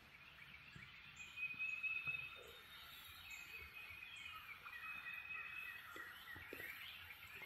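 Faint outdoor chorus of calling wild animals, steady trills with scattered chirps, a little louder for a moment about two seconds in.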